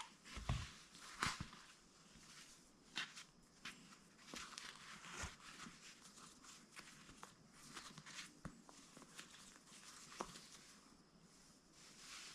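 Faint handling noise: scattered light taps and rustles of a sandal and its lace being worked by hand while it is relaced.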